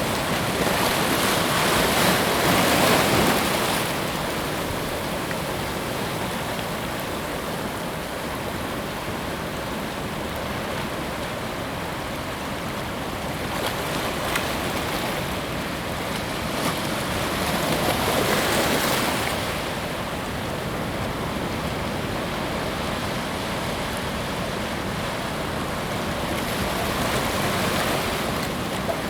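Ocean waves breaking and washing up a beach in a steady rush, swelling louder three times as larger waves come in.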